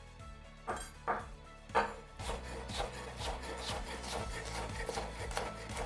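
Knife cutting bell peppers on a wooden cutting board: a few separate cuts, then a run of steady, evenly spaced cuts, under soft background music.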